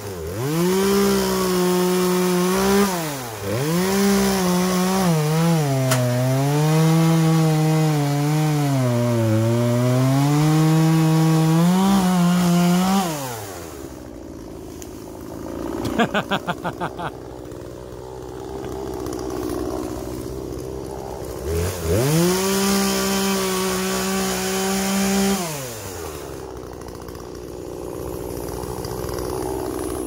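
Chainsaw running hard and cutting, its engine note sagging and recovering under load, then stopping about thirteen seconds in. After a short rattle of rapid pops it runs again at a high steady speed for about four seconds and stops.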